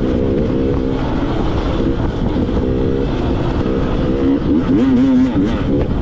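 Enduro dirt bike engine revving, its pitch rising and falling repeatedly as the throttle is worked, over heavy rumble.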